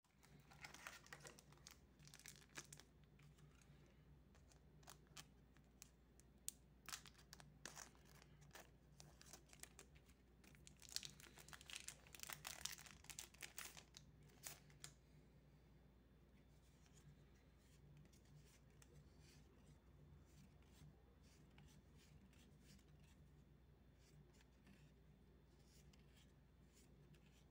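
A Magic: The Gathering Set Booster pack's plastic-foil wrapper being handled, crinkled and torn open, in quick crackles that are loudest about eleven to thirteen seconds in. After about fifteen seconds only a faint rustle of the cards being handled and fanned through.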